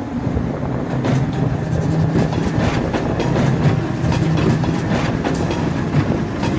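Streetcar rolling along the tracks, its wheels clacking over the rail joints over a steady low hum.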